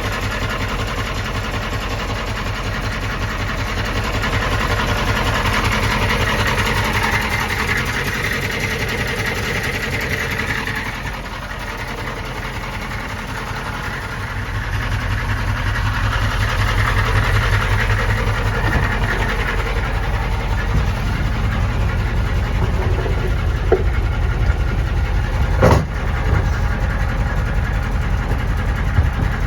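The 6.5-litre Detroit diesel V8 of a 1993 M998 HMMWV running with a rapid, even knock. The owner takes it for rod knock from a rod bent when the engine hydrolocked after sucking in water and lost compression. It grows louder twice, and there is a single sharp click near the end.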